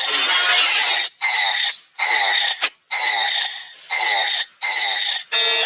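A cartoon character's loud belching: a run of short burps, about seven in a row, each under a second, with brief gaps between them.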